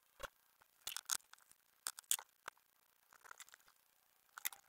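Scattered faint clicks and snips of hand wire strippers working on a thin insulated wire, a handful of sharp ticks a second or so apart.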